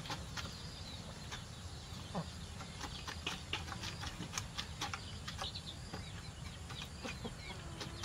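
Chickens clucking now and then, with one falling call about two seconds in, over scattered short sharp clicks and ticks.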